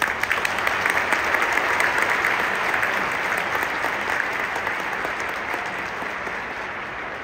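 Large stadium crowd applauding, starting suddenly and slowly dying down.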